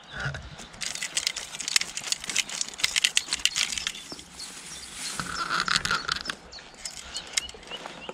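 Rapid, irregular clicking and tapping, densest in the first half, from a freshly netted rainbow trout flapping against a rubber-mesh landing net as it is handled.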